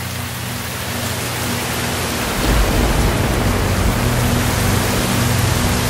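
Steady rain, an even hiss, with a low rumble of thunder rolling in about two seconds in and going on.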